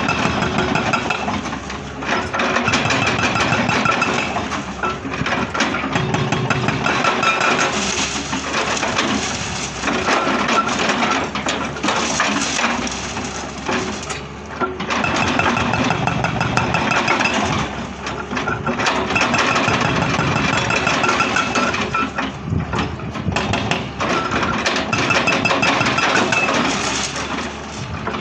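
Hyundai excavator's hydraulic breaker hammering in spells with rapid blows, over the machine's running diesel engine.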